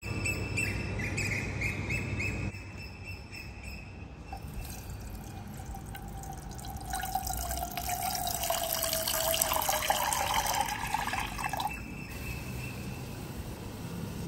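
Water poured in a stream into a nonstick saucepan, starting about four seconds in and growing louder, with a ringing tone that slowly falls as it goes, then stopping about twelve seconds in.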